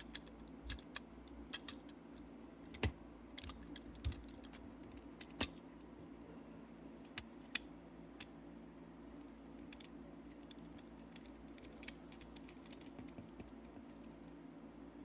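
Faint, scattered clicks and taps of small diecast metal and plastic toy-car parts being handled and pressed together as the body is reassembled, with a few louder clicks in the first half, over a steady low hum.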